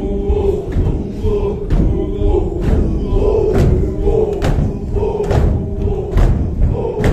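Ingush Sufi zikr: a group of men chanting in unison, with a sharp rhythmic beat from the circle's stamping or clapping about once a second.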